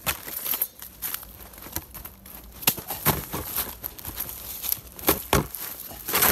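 Dry leaves and bark crackling and rustling right against the microphone, in irregular crisp crackles and scrapes.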